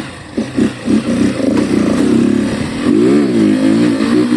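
Yamaha Factor 150 single-cylinder engine being revved with the air filter box cover removed, giving a deeper, louder intake rumble. Several quick throttle blips, then a rev that rises and falls about three seconds in, and a higher held rev near the end.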